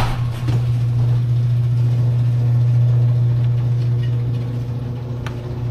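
Peterbilt semi truck's diesel engine idling steadily just after starting, a deep even hum. A short click about five seconds in.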